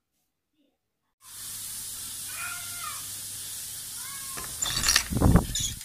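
Silent for about a second, then the steady hiss of a phone recording with a few faint cat meows. Near the end, loud bumps and rumbling from the phone being handled.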